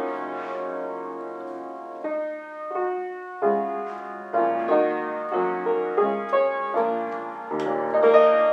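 Upright piano being played, with slow sustained chords and notes left ringing. After about two seconds, new chords are struck roughly every half second.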